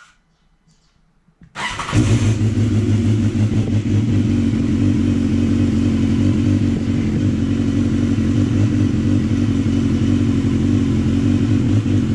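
BMW S1000R's inline-four engine starting about a second and a half in, catching after a brief crank, then idling steadily.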